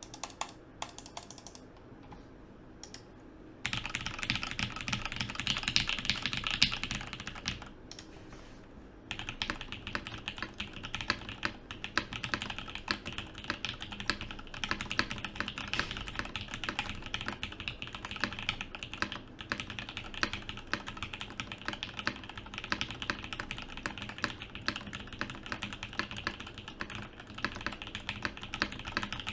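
Typing on a Mode65 mechanical keyboard with SP Star Meteor White switches, an FR4 plate and isolated top mount with no foam inside: rapid keystroke clacks. A few lone keystrokes at first, fast typing from about four seconds in, a short pause around eight seconds, then steady fast typing from about nine seconds on.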